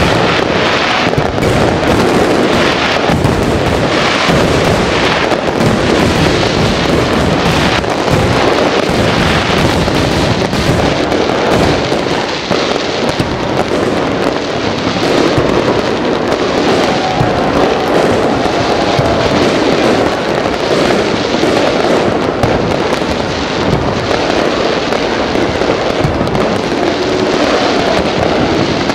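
Aerial fireworks display going off without a break: dense, overlapping bangs and crackling from many shells bursting at once.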